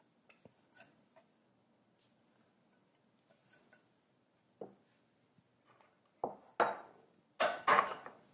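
A wire whisk working flour into batter in a glass mixing bowl. Faint light clicks at first, then a few louder strokes of the whisk scraping and knocking against the glass in the last couple of seconds.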